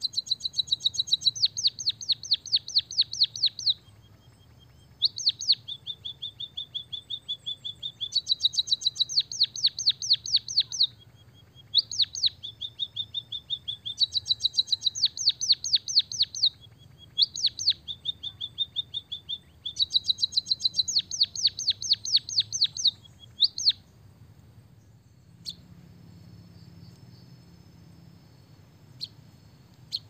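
White-headed munia singing a canary-like song: bouts of fast rattling trills, about six strokes a second, alternating with held level whistled notes. The song stops about 24 seconds in, leaving only a few faint chirps.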